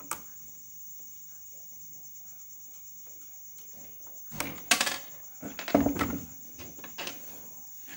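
Steady high-pitched chirring of crickets, with handling noise from the opened plastic radio case being moved: a clatter about halfway through and a second knock and rustle about a second later.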